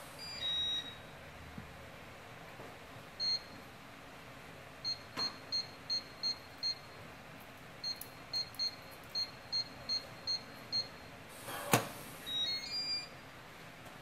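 LogHome LH5000 digital door lock: a short electronic chime as it locks, then two runs of short keypad beeps, one for each digit pressed, as a decoy number and then the passcode are entered. Near the end a sharp click of the lock mechanism is followed by another short chime as the lock opens.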